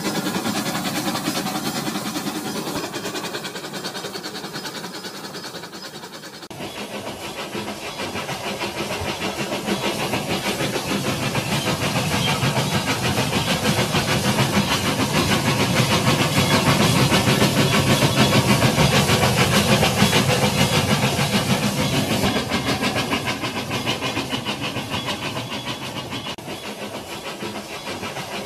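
A toy train's motor whirring and its wheels rattling along plastic track. An abrupt change about six seconds in, then the sound grows louder as the train passes close around the middle and fades toward the end.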